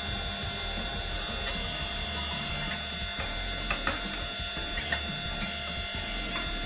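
Electric hydraulic power pack running: a steady motor and pump hum with a constant whine. A couple of sharp metallic clicks come midway as a steel bar is set in place across the press rig.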